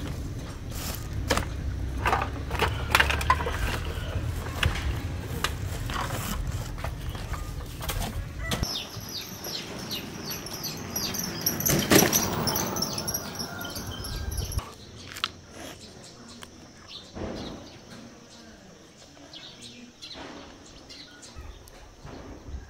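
Small birds chirping outdoors, with scattered knocks and rustles and a low rumble over the first several seconds; it grows quieter after about fifteen seconds.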